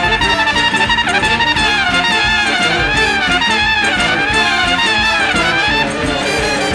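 Background music: an upbeat brass band tune with a trumpet carrying a wavering melody over a steady beat.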